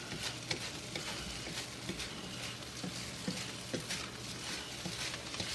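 Rice frying in a hot wok with a steady sizzle, while a spatula stirs and scrapes it, making scattered clicks against the pan.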